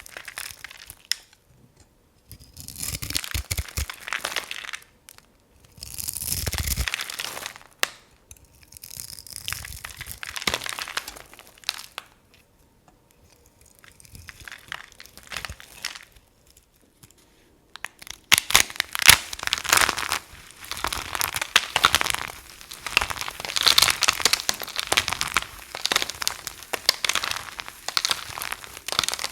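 Soap being crunched up close: dense dry crackling and crunching in bouts of a few seconds with short quiet pauses, then continuous from about two-thirds of the way through.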